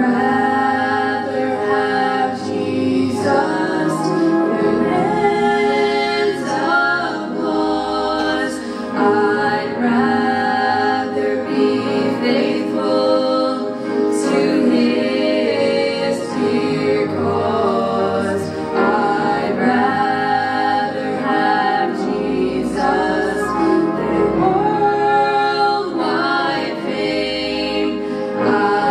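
Youth choir of girls and boys singing a church song together, with several lead voices sung into handheld microphones.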